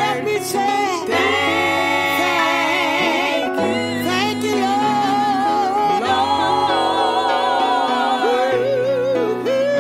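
Gospel music: singing with wavering held notes over a backing of bass and chords that change every second or two.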